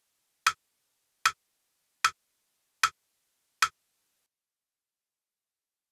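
Metronome-style clicks sounding a steady crotchet beat pulse, five evenly spaced sharp clicks about 0.8 s apart, counting in the beat before a dictation extract; they stop about two seconds before the end.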